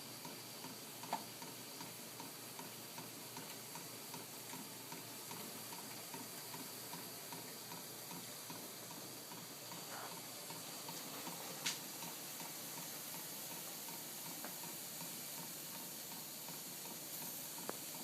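Small homemade Stirling engine running steadily on heat, its model-airplane power piston and flywheel making a fast rhythmic ticking, with a couple of sharper clicks.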